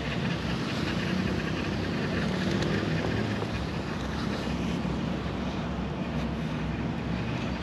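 Steady outdoor background noise with a faint, low engine-like hum running under it.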